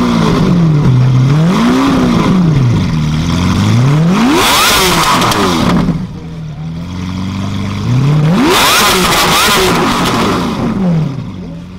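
Lamborghini Centenario V12 engine free-revving at standstill: several quick blips that rise and fall, then two hard revs, about four and a half and eight and a half seconds in, each climbing sharply with a loud rasp before dropping back. The sound fades near the end.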